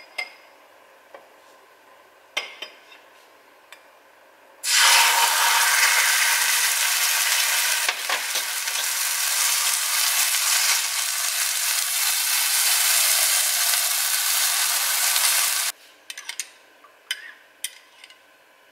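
Blue-dyed beaten egg sizzling and bubbling loudly in a hot oiled frying pan. The sizzle starts suddenly about five seconds in and stops abruptly some three seconds before the end. A few light clinks of a spoon against a glass bowl follow.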